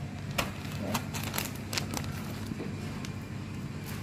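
A plastic packet and dry rice-paper wrapper sheets crinkling as they are handled, with about four short crackles in the first two seconds, over a steady low hum.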